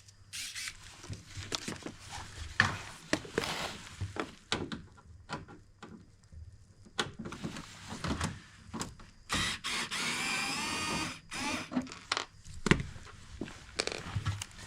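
Handling noises (clicks, knocks and scraping of parts) with a small electric screwdriver whirring for about two seconds near the middle, as screws are undone to take off a fan heater's cover.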